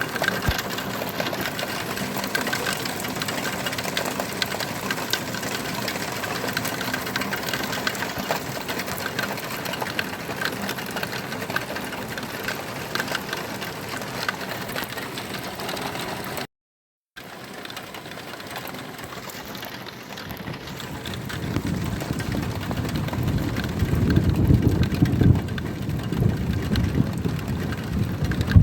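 Steady noise with dense fine ticks, then after a short break a low rumble of thunder builds from about twenty seconds in, loudest near the end.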